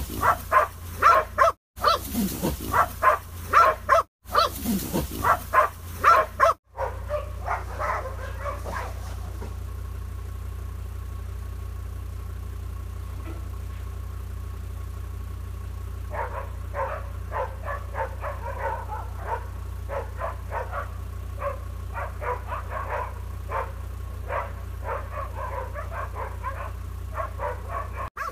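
Hunting dogs barking rapidly and continuously as they bay a wild boar, over the steady low hum of a vehicle engine. The barking drops away for several seconds in the middle, leaving only the engine, then starts again, fainter.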